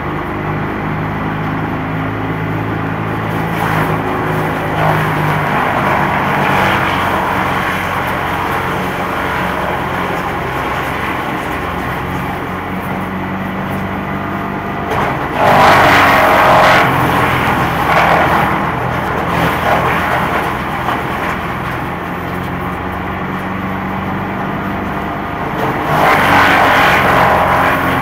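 Mobile wood chipper with a 41 hp combustion engine running steadily while leafy branches are fed in. Louder bursts of chipping come as branches go through, about two-thirds of the way in, briefly again soon after, and near the end.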